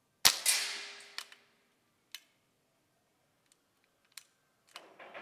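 Shots from a BSA R10 Gold Star SE .177 pre-charged air rifle: a loud, sharp crack about a quarter second in that rings away over about a second, then a quieter second shot near the end. A few light clicks come between the two shots.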